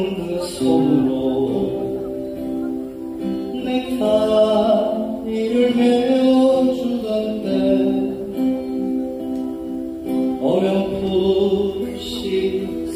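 Live acoustic guitar music: an instrumental passage, a sustained melody line over the guitars.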